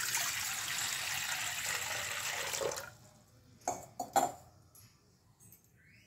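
Water poured in a steady stream into a stainless steel pot, splashing for about three seconds before it stops. Two short knocks follow about a second later.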